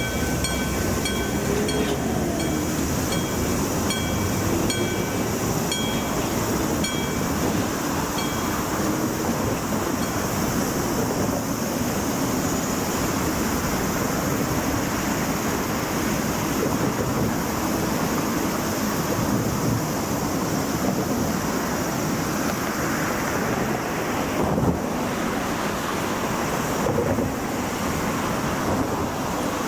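Railway level-crossing alarm ringing with a high, even ding about twice a second, stopping about eight seconds in. Under it and after it, a steady rushing wind noise on the microphone.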